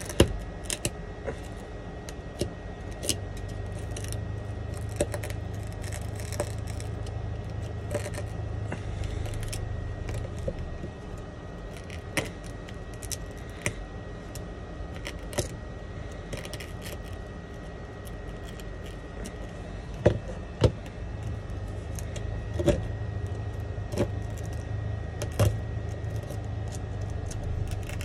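Sharp, irregular clicks and scrapes of a thin metal tool chipping and prying shattered back glass off an iPhone 11's frame, with small glass shards clinking. A low steady hum comes in for two stretches, a few seconds in and again in the second half.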